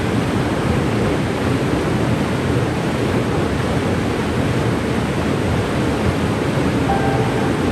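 Waterfall pouring steadily: a dense, even rush of water that does not let up.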